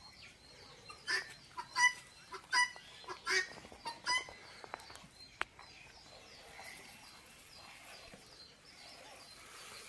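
A chicken calling: about five short, pitched calls under a second apart in the first four seconds, then only faint background.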